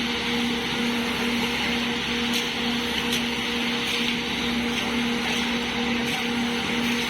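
A construction machine's engine running steadily with a constant hum, with a few faint clicks about two to three seconds in.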